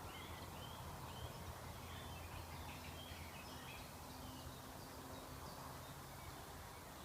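Faint distant birdsong from the surrounding woodland: scattered short chirps over a low steady hum.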